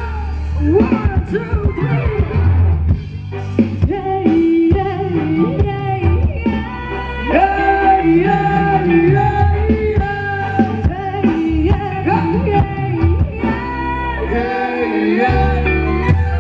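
Live Thai ramwong dance band playing, with a singer over a steady bass and drum beat.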